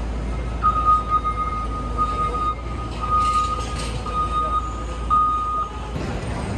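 Busy city street traffic rumbling, with a high electronic beep sounding for about five seconds in long, evenly repeated tones broken by short gaps, then stopping.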